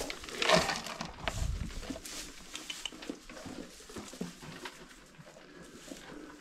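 Goats moving about on straw bedding in a wooden stall: rustling straw and small irregular knocks and clicks, with a louder thump about half a second in.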